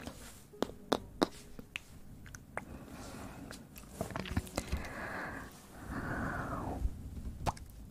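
Close-miked ASMR mouth sounds: sharp wet clicks and smacks in the first couple of seconds and again near the end, with two longer breathy sounds from about four to seven seconds in.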